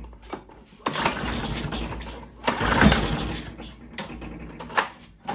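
Small lawn mower engine cranked by its pull cord, catching and running raggedly for a few seconds, then dying. It runs only on ether sprayed into the cylinder, the sign of a fuel-supply problem that the owner puts down to a clogged carburettor.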